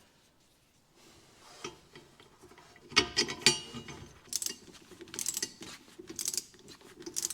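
Metal clinks and rattles of a sandblasted, painted steel suspension part being handled and fitted into position: irregular clusters of clicks, the loudest about three seconds in.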